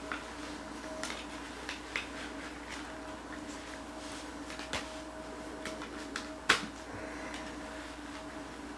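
Scattered light clicks and knocks from a Smith snowboard helmet being handled and tried on, the loudest about six and a half seconds in, over a steady low hum.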